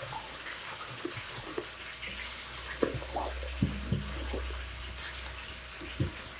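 Thick carrot cake batter with grated carrot and walnuts being stirred by hand in a stainless steel bowl, with a wet squelching and a few light knocks of the spoon against the bowl. A low hum swells underneath in the middle.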